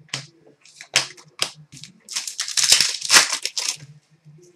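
Trading-card packaging being crinkled and torn by hand: a few sharp snaps, then about two seconds of dense crackling and crumpling.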